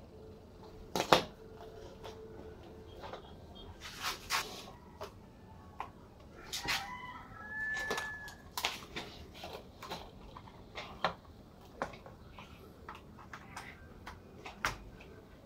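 Handling noise: a scattered run of clicks and knocks as the DIY CNC laser engraver's metal frame, control board and cables are moved and set up on a wooden desk. The loudest knock comes about a second in.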